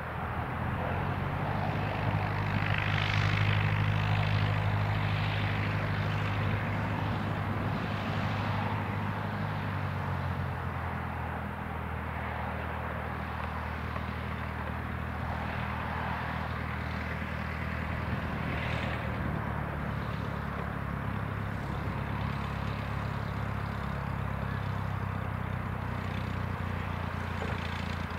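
De Havilland Gipsy Major 10 four-cylinder inverted inline engine of an Auster light aircraft running at low taxiing power, propeller turning. The engine note is louder for the first several seconds, then settles to a steady, lower note about ten seconds in.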